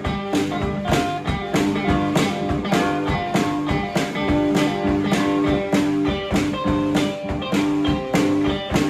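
Live blues guitar playing a repeating riff over a steady drum beat of about two hits a second, with no singing.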